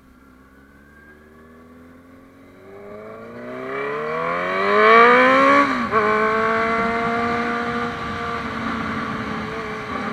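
Honda CB650F motorcycle's inline-four engine accelerating, its pitch climbing for about three seconds, then dropping at a gear change just before six seconds in. After the shift it runs at a steady pitch, with wind rush.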